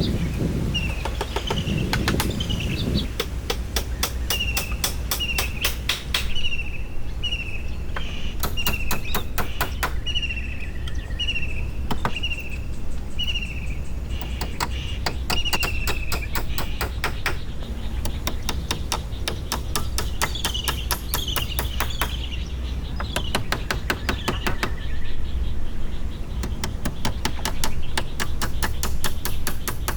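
A songbird calls over and over with a short, quick chirp about twice a second, pausing and resuming. Bursts of rapid clicking or tapping come and go several times, each lasting a second or two. A steady low rumble runs beneath.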